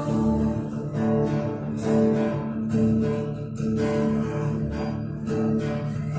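Instrumental passage of a live band song: strummed acoustic guitar in a steady rhythm over sustained low notes.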